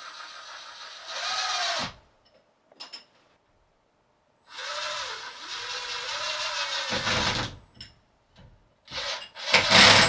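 Power drill running in two bursts, its motor pitch rising and falling with the trigger, then a few loud knocks near the end.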